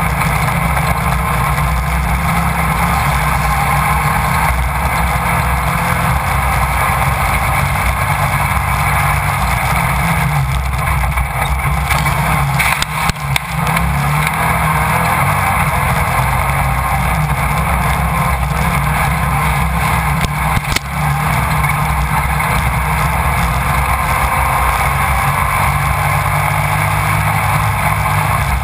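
Engine of a Class 1600 off-road race buggy heard from on board at racing speed, running hard and steady. The level drops for a moment twice, near the middle and about two-thirds of the way through.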